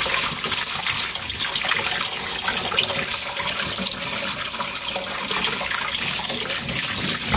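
Kitchen tap running steadily, the stream splashing over whole shrimp being rinsed in a small stainless steel colander in a stainless steel sink.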